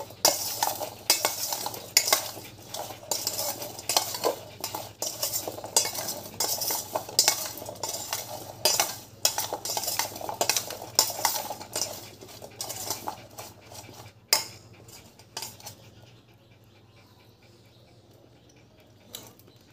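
Metal spoon scraping and clinking against a stainless steel bowl in quick, repeated strokes, mixing chopped guava. The stirring stops about fourteen seconds in, leaving a few single clinks.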